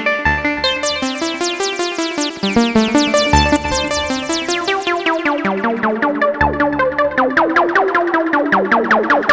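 Korg Minilogue XD synthesizer playing a fast arpeggiated sequence of short, plucky notes. A deep bass note comes in about every three seconds.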